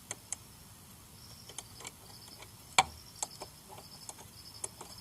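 Scattered sharp metallic clicks of a spanner on the motorcycle's rear-axle chain-adjuster nuts, the loudest a little before three seconds in. Crickets chirp faintly behind.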